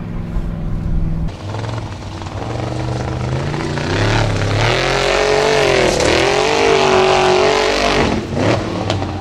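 Off-road racing buggy's engine revving hard on a steep hill climb, its pitch rising and dipping repeatedly. It is loudest from about four to eight seconds in, after a steadier low engine note in the first second.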